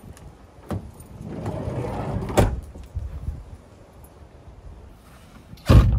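A minivan's sliding side door rolls along its track for about a second and slams shut with a bang. Near the end comes a second, louder thud of a car door being shut.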